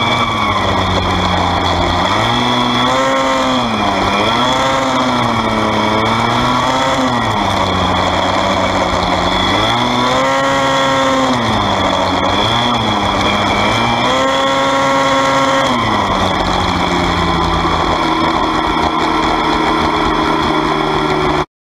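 Engine of a 2004 Invader F Modified formula car heard onboard during an autocross run, its note rising and falling again and again as the car accelerates and lifts through the cones. After about 16 seconds it settles to a steadier, lower note, and the sound cuts off suddenly near the end.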